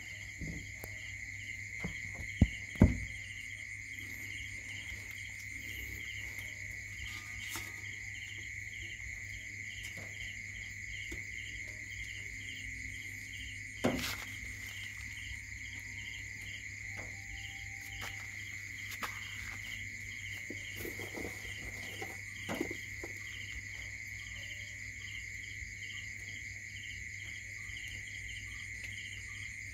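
Steady chorus of crickets: a constant high trill with regular chirps pulsing over it, over a low steady hum. A few sharp knocks break through, the loudest two close together about two and three seconds in, and another about fourteen seconds in.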